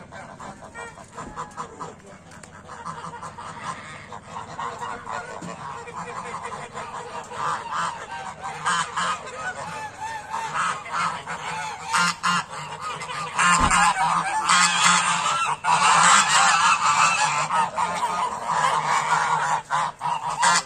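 A flock of domestic geese honking, many calls overlapping and building to a loud chorus in the second half. A single low thump about two-thirds of the way through.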